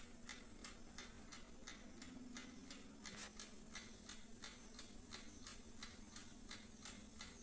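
Faint, even ticking of an Agaro 40-litre OTG oven's mechanical timer, about three ticks a second, as it counts down the set time.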